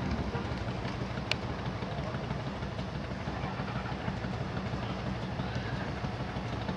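A vehicle engine running steadily in a low hum under a rushing outdoor hiss, with one small click about a second in.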